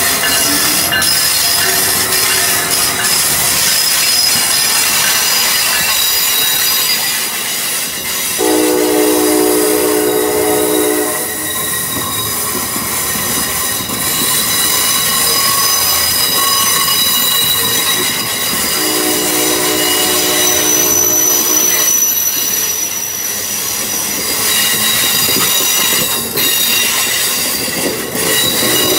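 Amtrak passenger train of Amfleet cars behind an ACS-64 electric locomotive rolling past close by: a steady rumble with high-pitched wheel squeal throughout. A train horn sounds twice, each chord blast about three seconds long, the first about eight seconds in and the second about ten seconds later.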